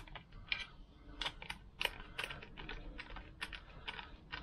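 Light, irregular clicking of a ratchet screwdriver, several clicks a second, as it tightens a screw holding a Lambretta scooter engine's stator plate.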